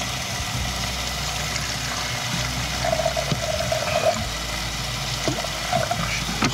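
Water pouring from a plastic bottle for a few seconds, over the steady sizzle of pork kebabs frying in a closed griddle pan on a portable gas stove.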